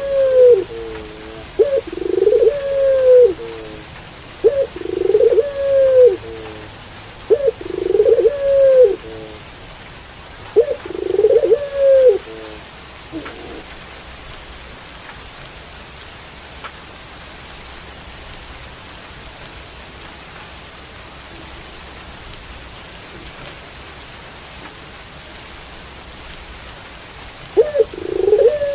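Puter pelung (a domestic ringneck dove) cooing: a short note followed by a long arched coo, repeated about every three seconds, then silent for about fifteen seconds before cooing again near the end. Steady rain hiss underneath.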